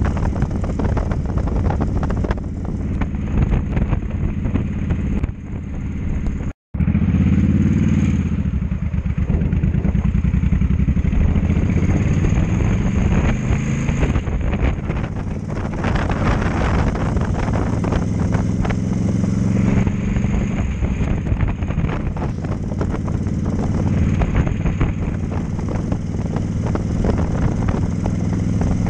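Cruiser motorcycle engine running steadily at road speed, heard from the rider's seat, with wind and road rush over it. The sound drops out for an instant about six and a half seconds in, then comes back with the engine briefly pulling up in pitch.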